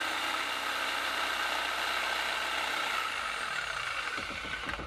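Electric jigsaw running steadily as its blade cuts through plywood, the level easing slightly near the end.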